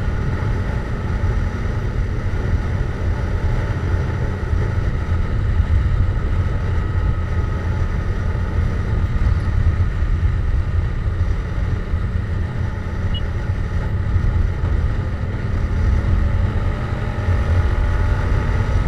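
Yamaha MT-07 parallel-twin with a Jeskap GP aftermarket exhaust running at a steady cruising speed, heard from on board the moving motorcycle as a continuous low drone with no changes in revs.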